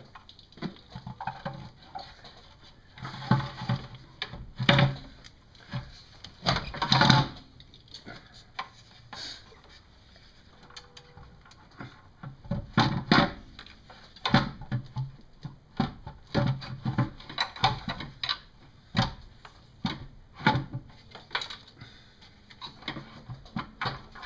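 Composite intake manifold for a 4.7 L V8 being handled and seated onto the cylinder heads: irregular knocks, clunks and rattles of plastic against the engine and hoses, with a few louder thumps.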